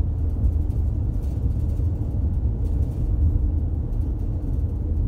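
Steady low rumble of road and engine noise inside a moving vehicle's cabin.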